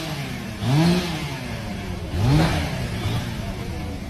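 An engine revved up and back down three times, each rev lasting about half a second, over a steady background hum.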